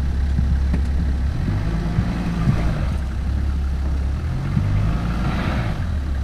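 Toyota 80 Series LandCruiser engine idling, then revving under load for about four seconds from just over a second in, as it tries to drive through deep, thick mud with its front wheel bogged; a rush of churning mud and water swells near the end of the revving before the engine drops back to idle.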